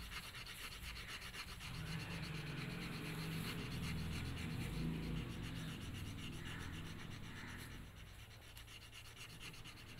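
Red crayon scratching on paper in rapid back-and-forth shading strokes as an area is coloured in. The strokes are louder in the middle and softer near the end.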